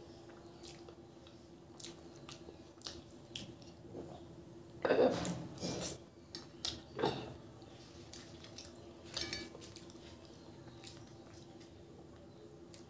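Close-up eating sounds of a person chewing puri and chicken curry eaten by hand: wet smacks and small clicks, with louder bursts about five and seven seconds in. A faint steady hum runs underneath.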